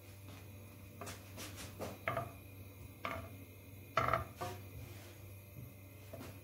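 Wooden spoon knocking and scraping in a stainless steel frying pan as butter melts: several short knocks, some with a brief metallic ring, over a faint steady low hum.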